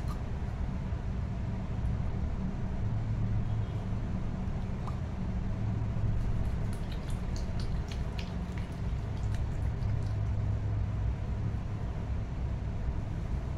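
A steady low rumble, with a run of faint, small wet clicks from about six to ten seconds in as hands rub a gel-like hair mix into wet hair.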